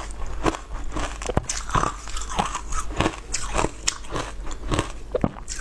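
Close-miked chewing of a mouthful of shaved ice: crisp crunches in a steady rhythm, about two a second.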